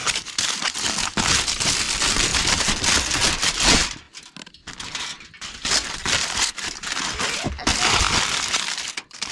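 Loud crinkling and rustling, dense and continuous, with short pauses about four seconds in and near the end.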